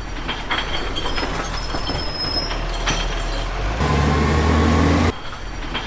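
A quieter stretch of scraping with scattered clicks, then a steady low heavy-engine drone that cuts in about four seconds in, breaks off briefly and comes back at the very end.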